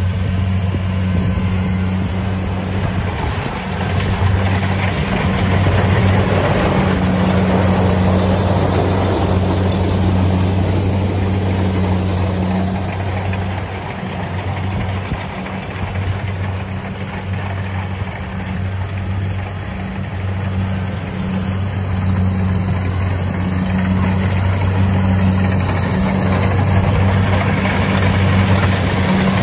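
Kubota DC-70 rice combine harvester running under load as it cuts standing rice: a steady low engine hum over a continuous haze of mechanical noise from the header and threshing drum, dipping a little in the middle.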